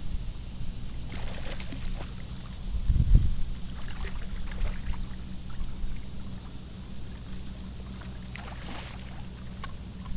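Wind buffeting the microphone over a steady low hum, with the strongest gust about three seconds in, and a few brief splashes as a hooked channel catfish is reeled into the shallows.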